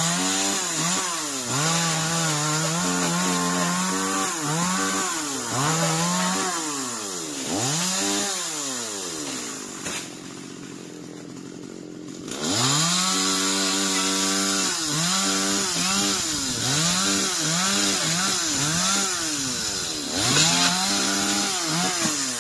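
Chainsaw revving up and down in repeated bursts while cutting in the crown of a tall coconut palm. It drops away for about three seconds near the middle, then revs again.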